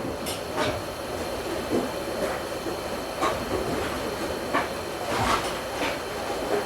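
Hot air rework gun blowing steadily on a surface-mount chip, a continuous rushing hiss, while heating the board until the solder melts and the chip can be lifted off. A few light clicks come through it.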